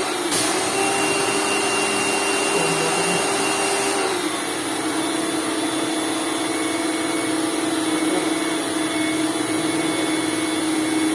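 Lakoni Laguna 70 electric pressure washer running steadily: a motor hum over the hiss of the water jet. The motor's pitch dips slightly about four seconds in.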